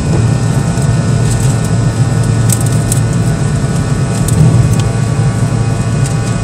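Cabin noise of a Fokker 100 in the climb: the steady, loud drone of its twin rear-mounted Rolls-Royce Tay turbofans and rushing air, with a layer of steady whining tones above it. A few light clicks and crackles come through now and then.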